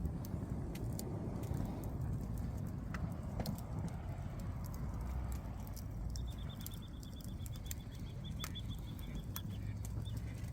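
Campfire crackling, with scattered sharp pops over a low steady rumble. From about six seconds in, a rapid high-pitched trill of about six pulses a second runs for roughly three seconds.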